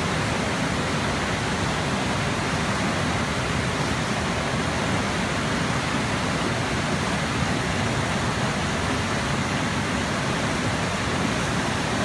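Waterfall and river rapids rushing steadily.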